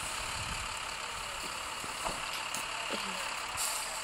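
Engines of a pickup truck and a stuck snowplow truck running at a distance during a tow attempt, as a low steady rumble, with a short scrape near the end.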